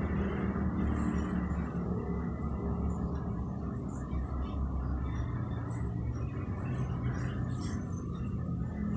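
A steady low rumble with a few faint ticks scattered through it.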